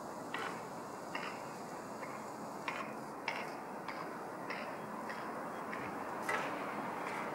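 Steady outdoor background noise, with short sharp clicks or taps at irregular intervals, roughly every half second to a second.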